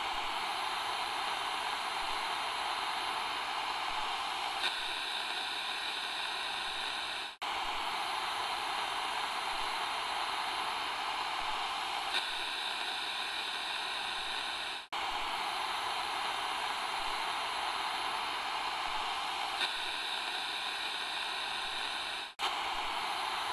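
Steady rushing hiss with no clear source, a short ambience clip looped about every seven and a half seconds, with a brief dropout at each join.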